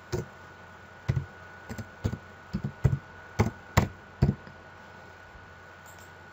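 Computer keyboard keys struck about a dozen times in an uneven run of sharp knocks, typing a short password, over a faint steady electrical hum.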